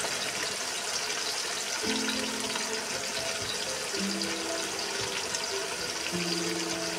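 Small fish deep-frying in hot oil in an iron kadhai, a steady, dense sizzle and crackle. Soft background music with long held notes comes in about two seconds in.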